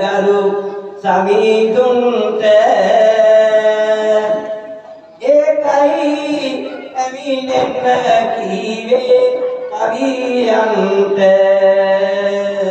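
A man singing Sinhala verse (kavi) solo into a microphone in a slow, chant-like melody, holding long notes in phrases of about four seconds with short breaths between.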